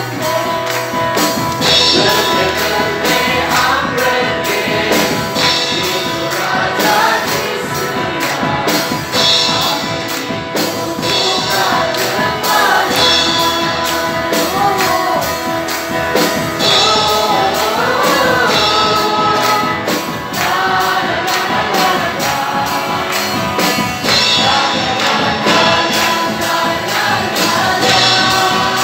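A live gospel worship song: a group of singers with acoustic guitar and keyboard backing, over a steady percussive beat.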